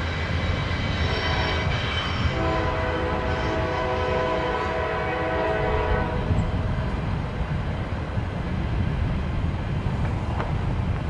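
Locomotive air horn blowing a multi-note chord, weaker for a moment about a second in, then a long blast that stops about six seconds in. After that the low rumble of approaching CN diesel freight locomotives carries on.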